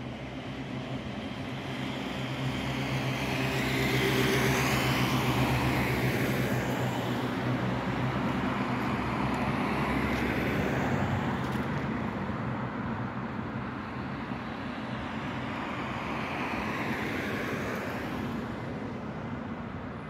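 Vehicle noise that swells to a peak about four to six seconds in and again near seventeen seconds, over a steady low hum.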